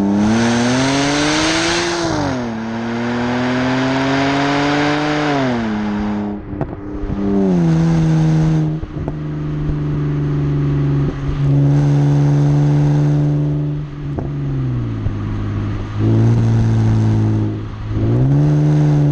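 BMW exhaust close up, rising in pitch under acceleration and dropping at each gear change, then holding steady revs with dips and rises as the throttle eases and opens again. A few sharp pops come as it eases off. A hiss of wind or rushing air sits over the opening seconds.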